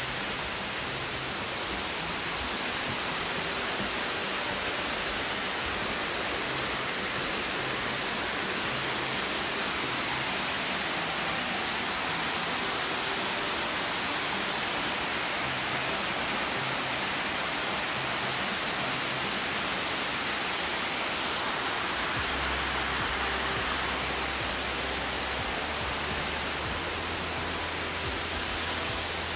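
Amicalola Falls' cascading water making a steady, even rush of falling water.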